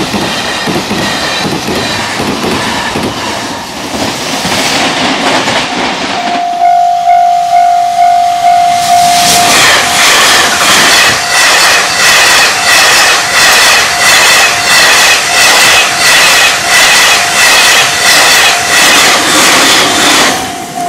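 JR Freight M250 Super Rail Cargo electric freight train rushing past a level crossing at speed. About six seconds in the rush breaks off, leaving a level-crossing alarm ringing in a steady pulse. About three seconds later the train rushes past again with a loud, even clatter of wheels, the alarm still ringing.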